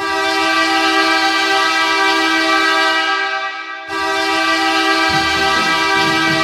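Hockey arena goal horn blasting a steady, loud chord, breaking off briefly a little before four seconds in and sounding again. Music starts beneath it about five seconds in.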